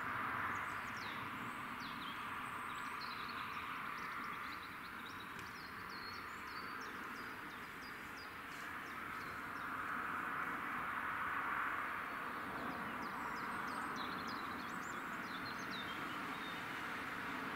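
Small birds chirping and twittering repeatedly over a steady outdoor rushing noise that swells twice.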